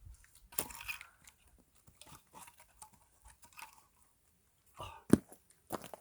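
Crunching and scraping of split firewood being handled, with one sharp wooden knock about five seconds in.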